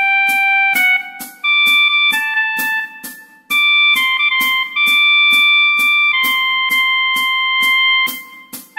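Clarinet playing a slow melody one held note at a time, with short breaks between phrases, over a steady ticking click track that keeps the beat.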